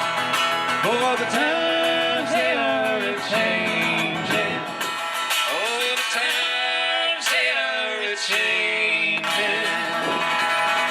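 Acoustic guitar strumming under a sustained melody line whose notes bend and slide: the instrumental close of a folk song played live.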